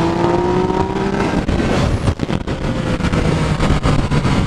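Yamaha FZ-09's inline three-cylinder engine accelerating with its pitch rising, then easing off about a second in, leaving a noisy rush with the engine's lower steady note coming back near the end.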